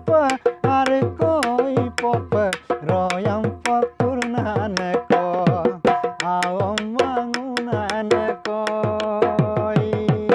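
A man singing to a dhol, a double-headed barrel drum beaten with a stick on one head and the bare hand on the other. The drum strokes come quick and steady, and its low strokes slide down in pitch. The singer holds one long note near the end.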